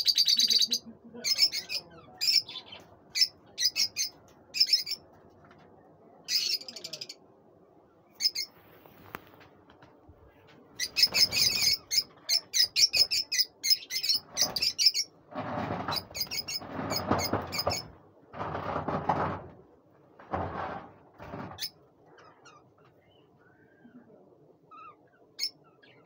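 A flock of lutino rosy-faced lovebirds chirping in quick, high-pitched bouts, busiest in the first half. Past the middle come five or so bursts of lower rustling noise, each about a second long.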